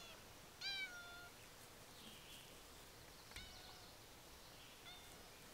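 A domestic cat meowing for food: one drawn-out meow about half a second in, then two shorter, fainter ones later on.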